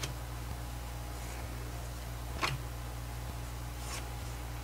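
Postcards being handled and shuffled by hand: a few brief papery flicks and taps, the clearest about halfway through. A steady low hum runs underneath.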